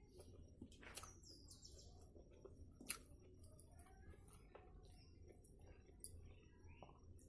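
Near silence with faint sounds of a person eating rice by hand from a steel plate: soft mouth and chewing noises and a few small clicks, the sharpest about three seconds in. A few faint, short, high chirps are also present.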